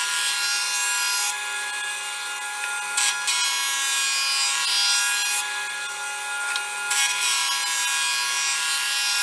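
Planer thicknesser used as a jointer, running with a steady high motor whine while its cutter block shaves a sapele board in light half-millimetre passes to flatten the face side. The cutting hiss swells each time the board goes over the knives and eases twice between passes.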